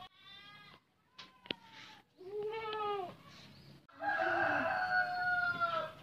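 An animal calling four times in drawn-out, pitched cries; the last and loudest lasts about two seconds.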